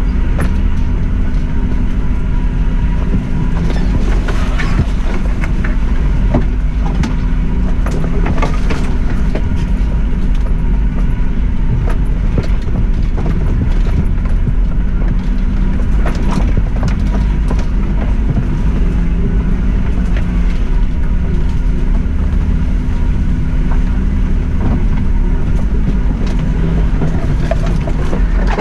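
Suzuki Jimny engine running at a steady low speed along a rough green lane, a constant low drone with track rumble under it. Scattered sharp knocks and scrapes come through now and then, several around five, nine and sixteen seconds in.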